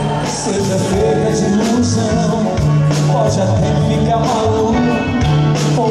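Live dance band playing a bass line with drum-kit beats and cymbal crashes, and a male voice singing over it.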